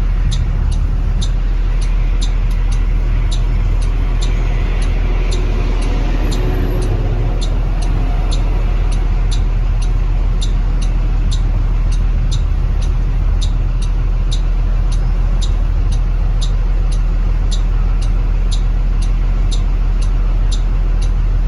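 2020 Blue Bird Vision school bus running steadily with a low, even engine drone, and a sharp tick repeating about twice a second over it.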